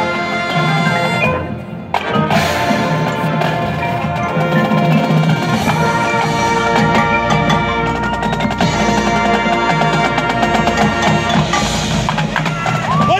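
High school marching band playing its show, drums and mallet percussion to the fore. The music drops briefly about one and a half seconds in, then the full band comes back in.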